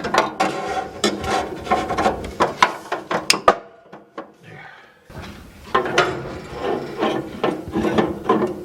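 Metal parts of a gas barbecue clanking and rattling as they are handled and fitted, in two busy spells of knocks with a short lull between them.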